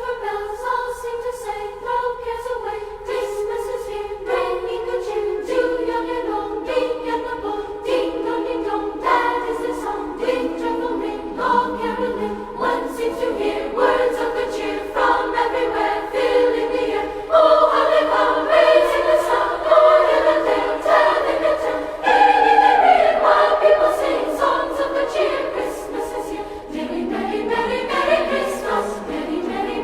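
Choir singing, with sustained vocal notes that change pitch, swelling louder about two-thirds of the way through.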